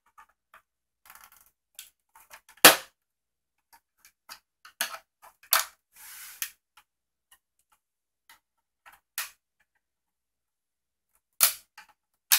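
Plastic monitor case being pried apart with a flathead screwdriver: scattered clicks and snaps of the bezel's tight clips, with one loud sharp crack about two and a half seconds in and a short scrape around six seconds in.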